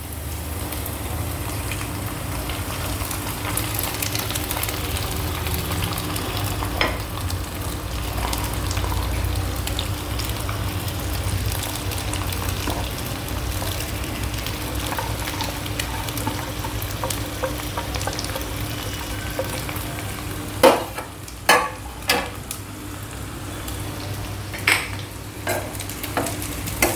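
Boiled jowar (sorghum) grains and ground peanut sizzling steadily in a kadhai of hot ghee tempering, over a low steady hum. From about twenty seconds in, a steel spatula stirs and knocks against the pan several times.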